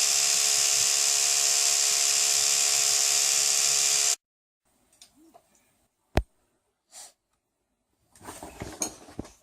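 A small electric motor runs steadily with a high hiss, then cuts off suddenly about four seconds in. A single sharp click follows about two seconds later.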